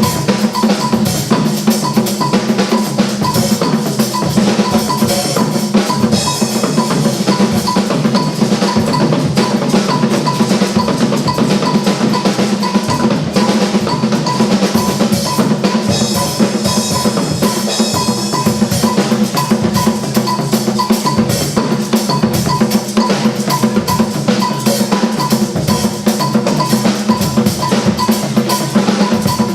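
Drum-driven music with a dense, unbroken beat of many quick drum strikes over a steady pitched backing.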